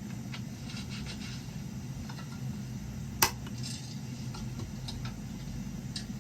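Metal mess kit clinking and knocking: several light clinks and one sharp clank about three seconds in, over a steady low rushing noise.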